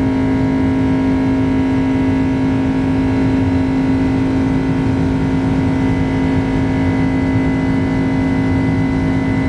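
Cabin noise inside a Boeing 767-300 with its GE CF6 turbofan engines running at takeoff power: a loud, steady drone with a strong low hum and several steady higher tones, unchanging throughout.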